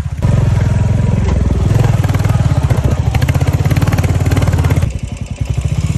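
Royal Enfield motorcycle engine running under load as the bike is ridden, its firing pulses steady, louder from just after the start and easing off near the end.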